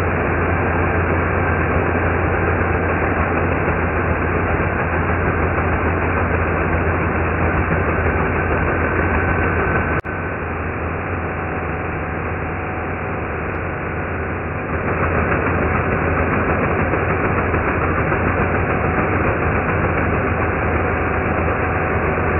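Parkside 1400 W electric chainsaw cutting through a branch, heard as a steady, deep, slowed-down drone. A click comes about ten seconds in, after which it runs quieter for about five seconds, then picks up again.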